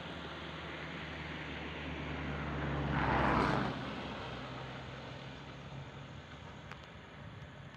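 A motor vehicle passing by: a low engine hum with tyre and engine noise that swells to its loudest about three seconds in, then fades away.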